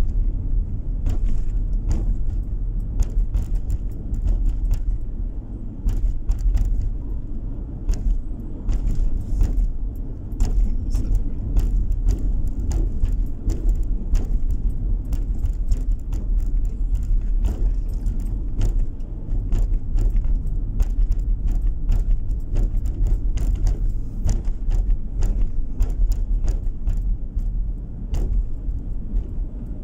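Car driving on an uneven, cracked rural road, heard from inside the cabin: a steady low road and engine rumble. Frequent light rattles and clicks from loose items in the car jiggling over the bumps run through it.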